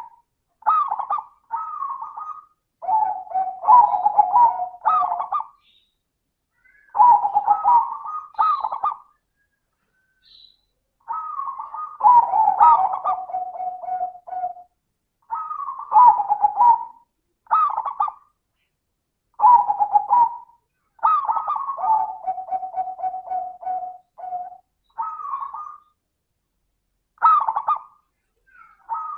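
Zebra dove (Javanese perkutut) cooing in repeated rhythmic phrases with short pauses between them. Several phrases end in a long held lower note.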